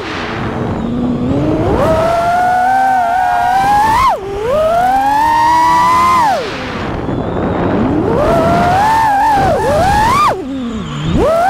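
FPV quadcopter's brushless motors (T-Motor F60 Pro4, 1750kv) and propellers whining, the pitch rising and falling with the throttle, with sharp drops where the throttle is chopped about four, six and ten seconds in.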